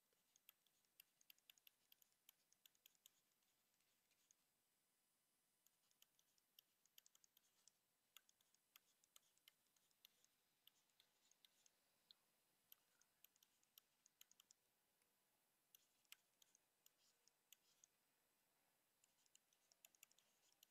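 Faint clicking and scratching of a pen stylus on a tablet screen while handwriting. The quick taps come in bursts of a few seconds, with short pauses between them.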